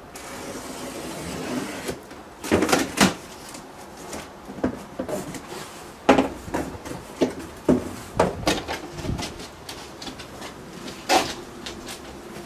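Cardboard being handled: a rising hiss as the tape along the lid of a large cardboard box is opened, then knocks and rustles as the stiff cardboard flaps are folded back and the box is opened up.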